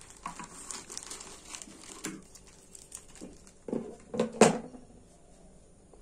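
Scissors cutting through a thin plastic courier mailer, the plastic crinkling and rustling. A sudden loud sharp sound comes about four and a half seconds in.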